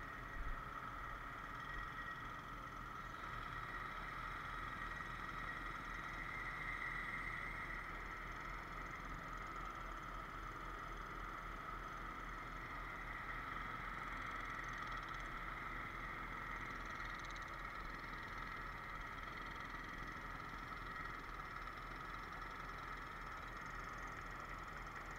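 Boom truck running steadily while its boom holds a utility pole, a steady engine drone with a high hydraulic whine over it.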